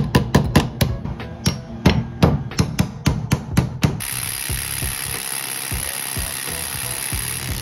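Impact wrench working the castle nut on a Honda Foreman's rear axle: a quick run of sharp metallic knocks, about five a second, then the steady whirring hiss of the tool running for the last few seconds.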